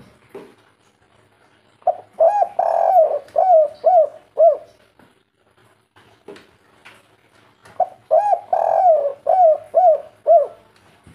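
Spotted dove (tekukur) cooing its 'kuk 3' song twice: each phrase is two short coos, one long drawn coo, then three short falling coos.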